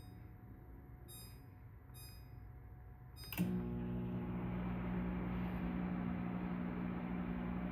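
Whirlpool WML30511KS-0 low-profile microwave: four short keypad beeps as the controls are pressed, then about three seconds in the oven starts heating with a steady electrical hum and fan noise.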